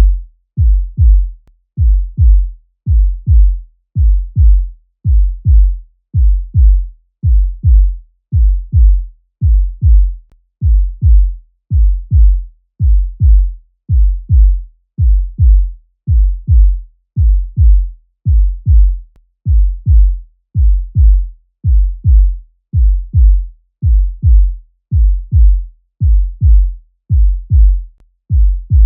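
Human heartbeat sound effect: a steady lub-dub rhythm of paired low thumps, repeating evenly without change.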